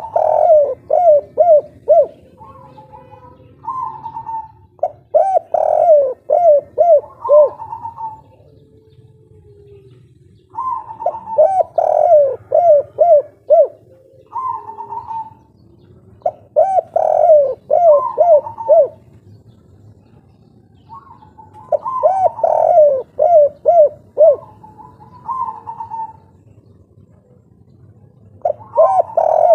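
Spotted dove cooing its song over and over, in the 'kuk 3' style valued by Indonesian dove keepers: a phrase roughly every five seconds, each a quick run of coos followed about a second later by a single shorter coo.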